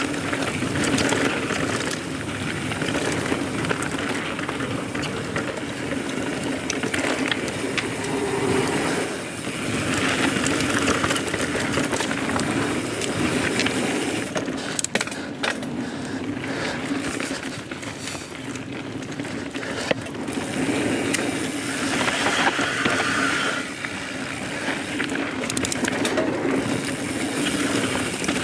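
Transition Spur mountain bike descending a dry dirt singletrack at speed: a steady rumble and rush of tyres rolling over the trail, with a few sharp clicks and rattles from the bike about halfway through and near the end.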